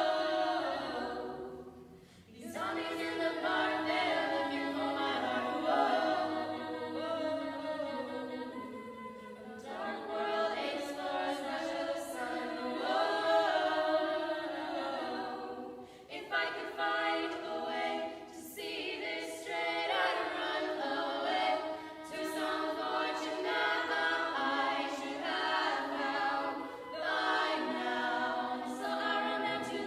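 An all-women's a cappella group singing in close vocal harmony with no instruments. There are short breaks between phrases about two seconds in and again midway.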